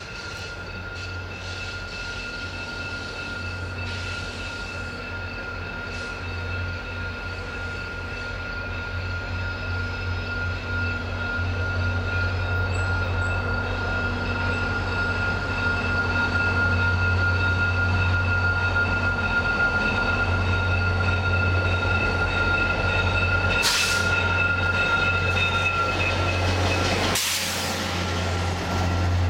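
VIA Rail passenger train led by an EMD F40PH-2 diesel locomotive approaching and passing, the engine's steady low hum growing louder as it nears, then the coaches rolling by. A steady high-pitched ringing runs over it and stops about three seconds before the end, and two brief hissing bursts come near the end.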